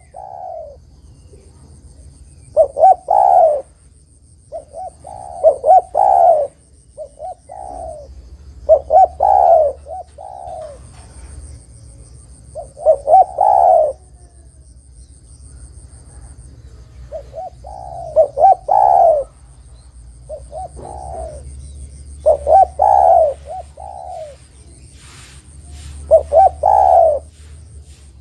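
Spotted dove (derkuku) cooing: short phrases of several rough cooing notes, repeated every few seconds with brief pauses between.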